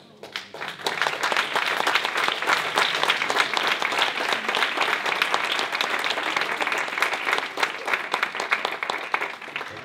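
Audience applauding: many hands clapping, building up in the first second and dying away near the end.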